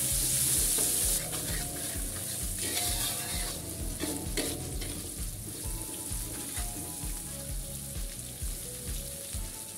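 Chopped shallots, garlic and chillies sizzling in hot oil in an aluminium wok, with a metal spatula stirring and scraping across the pan. The sizzle is loudest in the first second.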